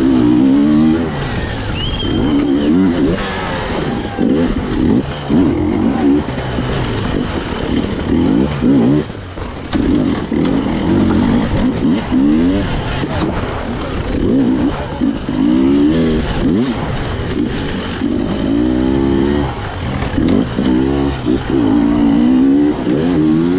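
Two-stroke hard-enduro motorcycle engine revving up and dropping back again and again, the pitch climbing several times with brief dips in between.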